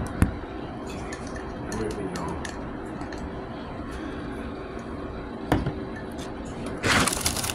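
Scattered knocks and clinks over a steady restaurant background hum, with a louder knock about five and a half seconds in and a loud rustle near the end.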